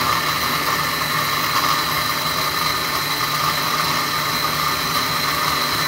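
Small press-top electric food chopper running steadily as it purées soft stewed vegetables, its motor giving an unbroken high-pitched whir.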